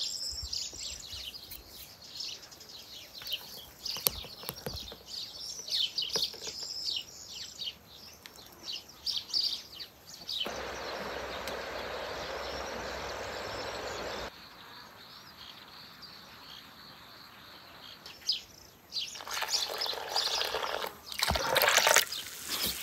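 Small birds chirping. Partway through, a steady rush of wind runs for a few seconds and cuts off. Near the end, water splashes as it is poured from a clay jug into flour in an earthenware bowl.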